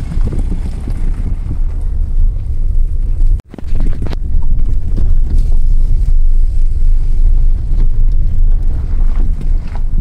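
Wind rushing over the microphone of a moving car, over the low rumble of the car travelling a rough dirt road. The sound cuts out for an instant about three and a half seconds in.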